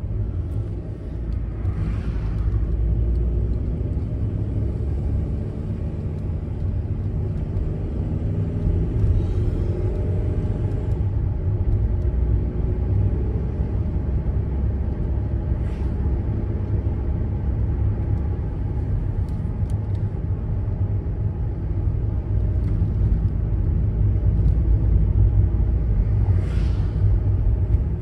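Cabin noise of a VW California camper van driving up a mountain pass road: a steady low rumble of engine and tyres. About a third of the way in, the engine note rises and falls a little.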